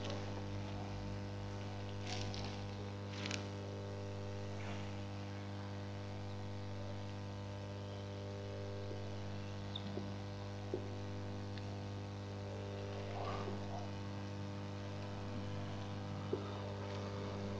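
Steady low electrical mains hum, with faint scattered squeaks and taps of a whiteboard marker and eraser against the board.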